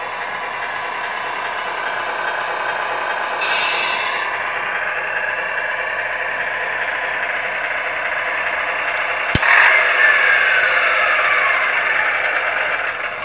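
Tamiya Scania R620 1/14 RC truck's electronic sound unit playing a simulated truck diesel engine running steadily through its small speaker, with a short air-brake hiss about three and a half seconds in. Near the end a sharp click is followed by the engine sound winding down in falling pitch and fading.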